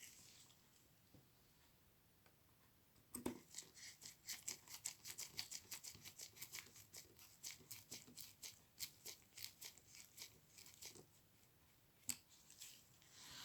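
Small screwdriver driving tiny screws back into a camera: a quick run of faint, sharp clicks, about four a second, beginning about three seconds in, with one more click near the end.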